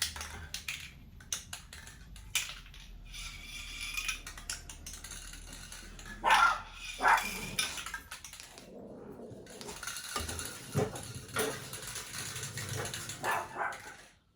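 A dog barking several times, with sharp clicks near the start and a hiss between the barks.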